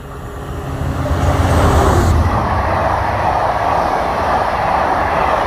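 Passenger train passing through a station at speed. It gets louder over the first second or two as the front goes by, then settles into a steady rumble and rush of the carriages running on the rails.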